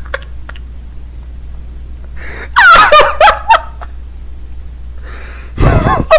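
Snoring heard over a voice call: two breaths about three seconds apart, each a rasping intake followed by a squeaky pitched part, the second ending in a loud low rasp.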